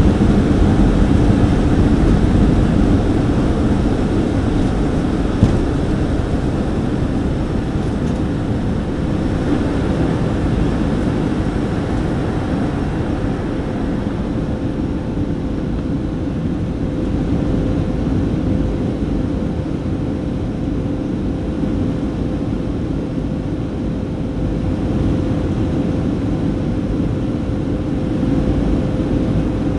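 Boeing 737-300's CFM56-3 turbofan engines at takeoff power, heard inside the passenger cabin: a steady, low-heavy jet roar with a constant hum, easing slightly over the first twenty seconds. A single short click about five seconds in.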